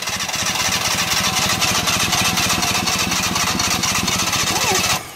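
Fuel-injected engine cranking over on its starter without catching, in a long rapid churn that stops about five seconds in. It is a no-start being chased after a corroded relay had left the engine with no spark.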